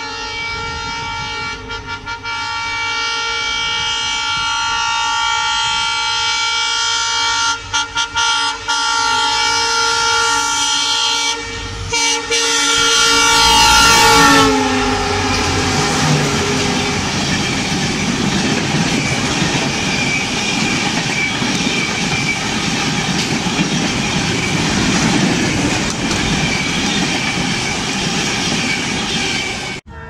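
Twin WDP4D diesel locomotives sounding their horns almost continuously as they approach at speed, with three short breaks. About halfway the horn is loudest and its pitch drops as they pass. Then comes the steady rush and clatter of the express's coaches running through the station.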